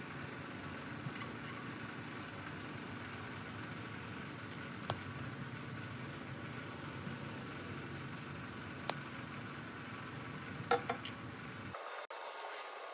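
Insects chirping over a steady background hiss, with a few sharp clicks a few seconds apart.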